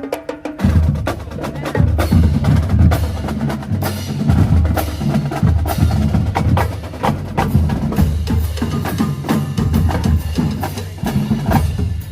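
Marching band drumline playing a fast cadence: rapid snare strikes over pitched bass and tenor drums.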